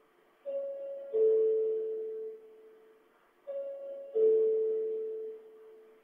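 Two-note electronic chime sounding twice, each time a higher note followed by a louder lower note that rings and fades over about a second, repeating about every three seconds.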